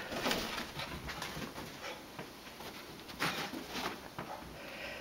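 A wet beagle running around after its bath: scuffling and rustling as it jumps off a couch and runs along carpet, with a louder burst a little over three seconds in.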